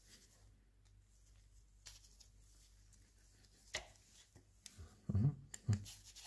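Faint handling sounds as a gloved hand works a long thin tool into a hidden screw on a cast-iron milling-machine gearbox housing: a light sharp click a little past halfway, then two dull low knocks near the end.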